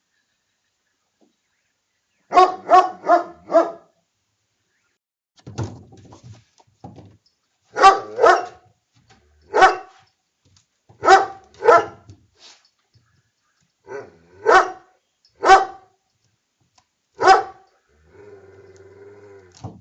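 A dog barking: a quick run of four barks a little over two seconds in, then single and paired barks every second or two. A low, steady pitched sound follows in the last two seconds.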